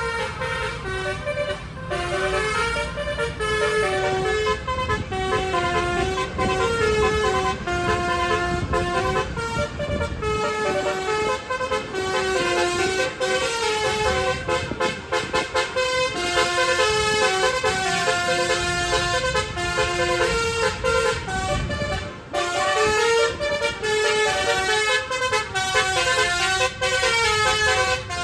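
Multi-tone 'telolet' bus horn playing a fast melody of short stepping notes, over a low rumble.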